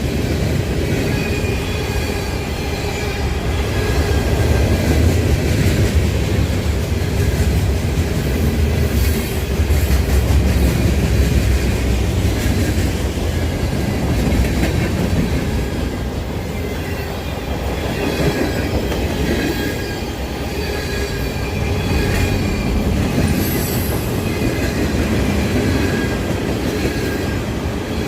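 Freight train cars rolling past with a steady low rumble of wheels on rail, and thin wheel squeal coming and going over it.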